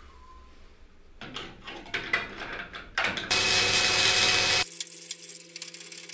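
Workshop tool noise: clicks and scraping at first, then a loud power-tool burst lasting about a second that stops abruptly. A steady hum with rapid clicking follows.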